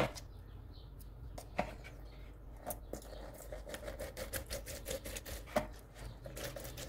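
A plastic hand citrus juicer is set down on a stone worktop with a knock. A few seconds in, a lemon half is twisted back and forth on its ridged cone, making a run of quick, scratchy rubbing clicks, several a second.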